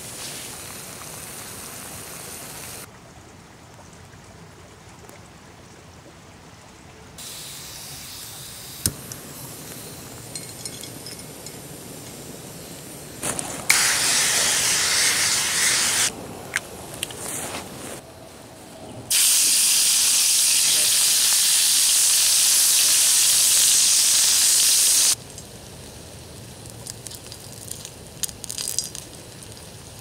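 Aerosol olive oil spray hissing loudly into a cast-iron skillet, two long sprays in the middle, with the quieter hiss of a small gas backpacking stove burner between them. Near the end, oil sizzles and crackles as cicada nymphs fry in the pan.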